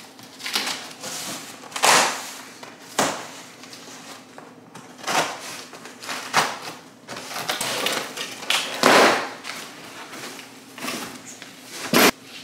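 Large cardboard box holding a full-length mirror being opened and handled: irregular scraping and rustling of cardboard, with a sharp knock near the end.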